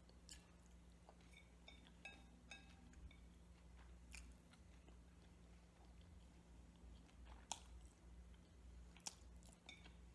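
Soft, close-up chewing and mouth sounds of someone eating, with scattered light clicks over a faint steady hum.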